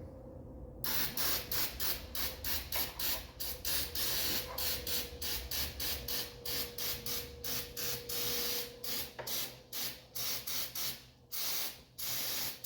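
Spray cleaner hissing onto a dirty ATV carburetor in many short squirts, a few a second, with one longer spray in the middle, to wash off built-up gunk.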